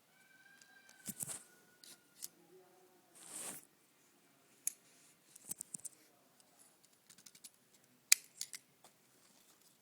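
Small plastic toy parts being handled: scattered light clicks and short scrapes. There is a brief rustle about three seconds in and a sharp click about eight seconds in.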